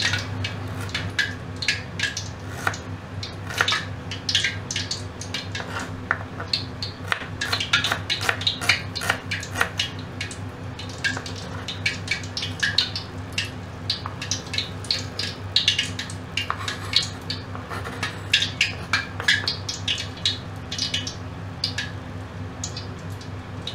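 Kitchen knife clicking and knocking on a wooden chopping board in irregular sharp strikes, several a second, as red onion and garlic cloves are sliced. A steady low hum runs underneath.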